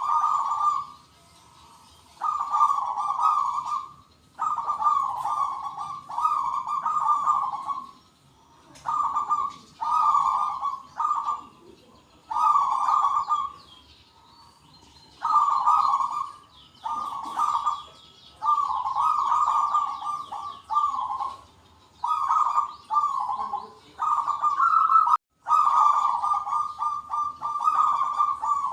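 Zebra doves (perkutut) cooing: several birds giving repeated trilling phrases one after another, each about a second long, answering each other almost without pause.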